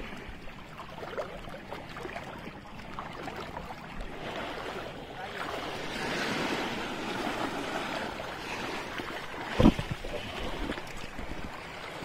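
Shallow sea water washing and lapping over a rocky shore, a steady wash that swells louder in the middle, with one sharp thump near the end.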